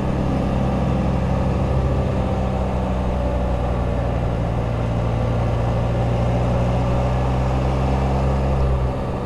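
Can-Am Spyder RT engine running steadily at about 2,500 rpm while cruising at around 35 mph, with wind and road noise rushing past the microphone. The engine note shifts slightly near the end.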